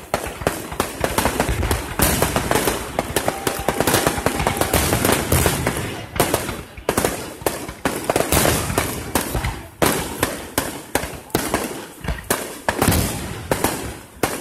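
Fireworks display going off in rapid succession: a dense, unbroken run of sharp bangs and crackles, several a second.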